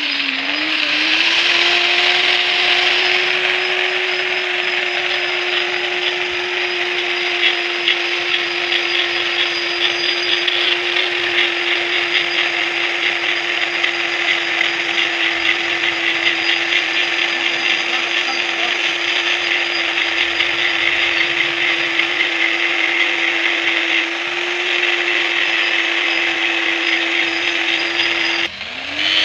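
Electric workshop machine running steadily on metal: a constant motor whine with a gritty cutting noise over it. The pitch sags briefly at the start and again just before the end, then picks back up.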